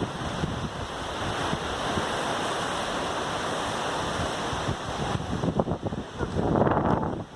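Strong storm wind gusting and buffeting the microphone as a steady rushing noise, with a louder gust shortly before the end.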